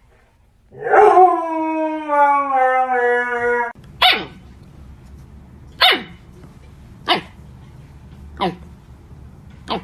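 A husky howls once for about three seconds, the pitch sliding slightly down. Then a husky puppy gives five short, sharp yips, each dropping quickly in pitch, spaced a second or two apart.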